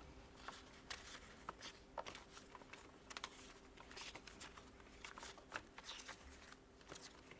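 Faint, irregular ticking and rustling of paper index cards being flipped through by hand in a card-file drawer.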